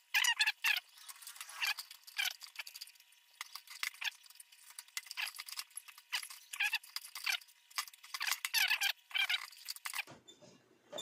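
Sheet-metal casing of an electric bread toaster squeaking and scraping as it is handled and pried at to open it, in quick irregular strokes that die down near the end.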